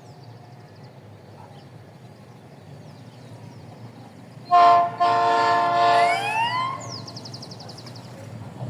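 Diesel freight locomotive's horn: a short blast about four and a half seconds in, then a longer chord of several tones lasting over a second. As the horn ends, a siren rises in pitch.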